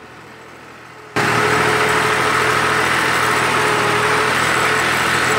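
After a quiet first second, a New Holland Al-Ghazi 65 hp tractor's diesel engine comes in loud and steady, running while it pulls an 11-tine cultivator through the soil.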